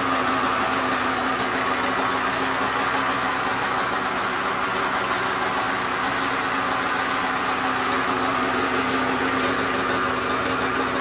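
Stock 2020 Polaris SKS 850 snowmobile's two-stroke twin idling steadily, with no revving. It reads about 76 to 82 dB on a sound meter and is called pretty quiet.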